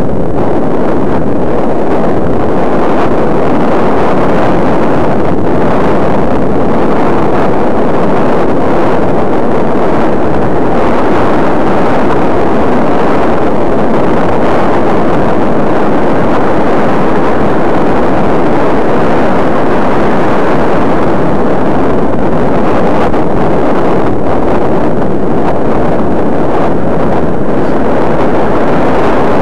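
Loud, steady wind rushing over the microphone of an eyeglass camera on a moving bicycle, drowning out other sound.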